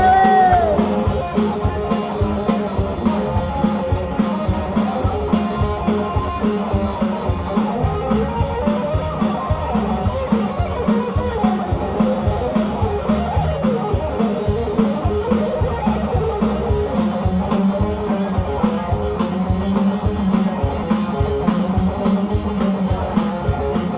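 Live rockabilly band playing an instrumental break: electric guitar lead over a steady, driving drum beat and bass.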